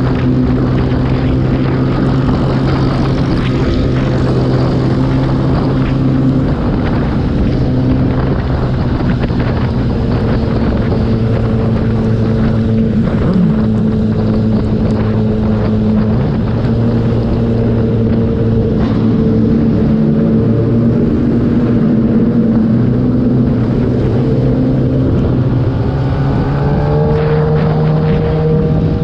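Kawasaki ZX-10R inline-four engine running at a steady cruise under wind noise, its pitch shifting a little with the throttle and rising near the end as the bike accelerates.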